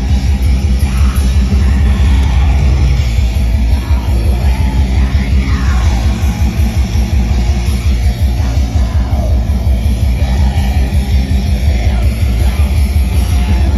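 Black metal band playing live through a loud PA, heard from within the crowd: distorted electric guitars over fast, dense drumming.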